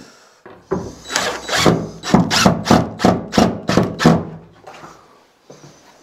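A hand tool worked back and forth on wood in a quick run of about ten strokes, three to four a second, lasting about three seconds.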